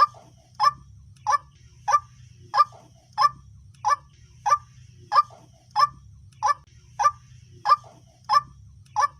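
White-breasted waterhen (dahuk) calling: a short, harsh call repeated with machine-like regularity, about three calls every two seconds.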